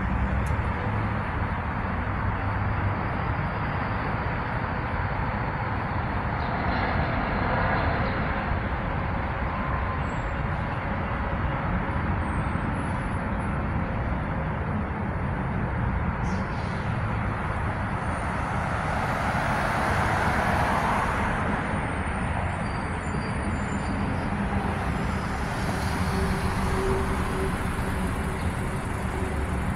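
Outdoor ambient noise: a steady low rumble of traffic with a broad hiss that swells twice, about seven and twenty seconds in.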